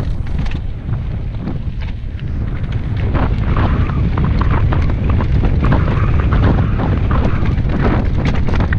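Commencal Meta SX mountain bike riding fast down a rocky trail: tyres crunching over loose stone, with many sharp clicks and rattles from the bike over the rocks, and heavy wind buffeting on the GoPro's microphone. It gets louder about three seconds in.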